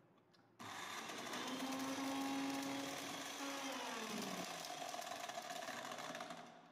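Electric blender motor switched on suddenly, whirring for about six seconds with torn pieces of a red toy ball churning in the jar. Its pitch drops partway through before it cuts off near the end.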